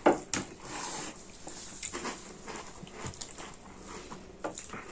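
Mealtime sounds: scattered clicks and knocks of dishes and utensils, with a sharp knock at the very start and another just after.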